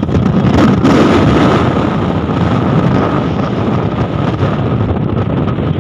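Wind buffeting the microphone while riding in an open-sided passenger vehicle on the move, with the vehicle's running noise and road rumble underneath and a faint steady whine throughout.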